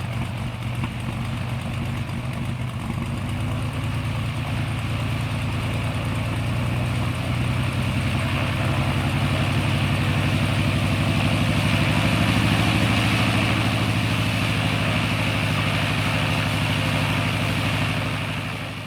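Propeller airplane engine idling steadily, growing a little louder over the first half, then fading out near the end.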